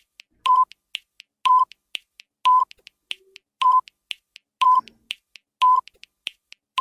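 Quiz countdown timer sound effect: a fast clock-like ticking, about four ticks a second, with a short beep on every second.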